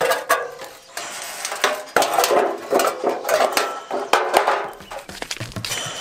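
Hand tin snips (aviation snips) cutting through sheet metal salvaged from an old car body: a series of sharp, irregular crunching cuts, with the sheet clanking and ringing as it is worked.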